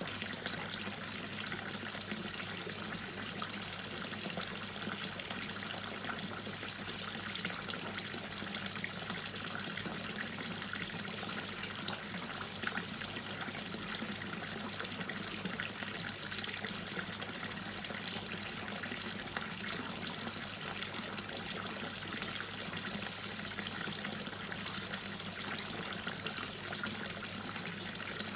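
Water dripping and trickling steadily: many small drops falling in an unbroken patter over a constant wash of running water.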